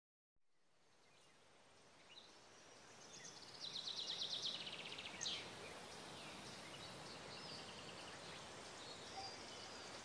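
Outdoor ambience of open woodland fading in, with songbirds: a fast, high trill about three and a half seconds in, the loudest sound, then a short sweeping call and fainter trills over a steady low hiss.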